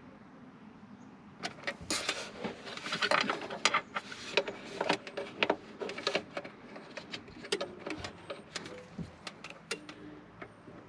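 Irregular clicking and clattering of hard objects being handled, starting about a second and a half in and continuing in quick, uneven knocks until near the end.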